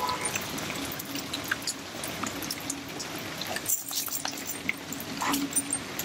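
Rainwater dripping and trickling, with many scattered drops pattering on a wet concrete rooftop, over a steady low hum.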